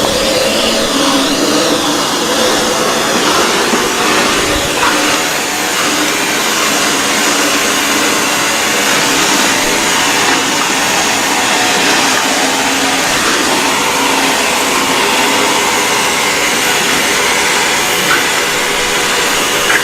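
ECOVACS DEEBOT N79S robot vacuum cleaner running in auto cleaning mode: a steady whirring hiss of its suction motor and brushes.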